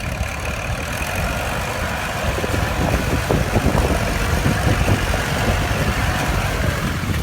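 Kubota L4708 tractor's diesel engine running steadily, with irregular knocks and clanks from about two and a half seconds in.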